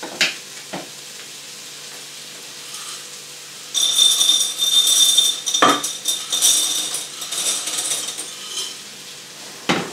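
Dry pasta poured from a glass jar into a slow cooker pot, a loud rattling pour lasting about five seconds that starts about four seconds in. Before it come a few sharp clinks of the jar, and there are single knocks during the pour and near the end.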